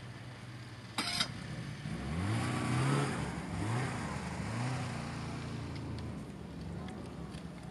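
Snowmobile engine with a sharp crack about a second in, then revved up and down several times before settling into a steady run.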